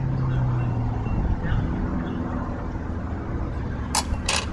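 Road traffic going by: a passing vehicle's engine hum that fades about a second in, over a steady low traffic rumble. Two short scratchy sounds come near the end.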